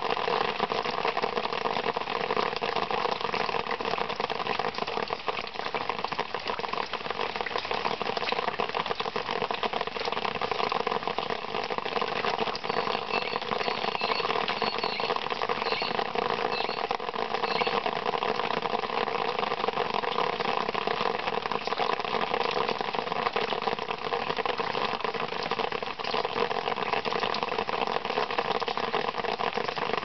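Rainwater dripping rapidly onto large, drum-like acanthus (Acanthus mollis) leaves: a dense, steady pitter-patter with a twangy, sitar-like ring.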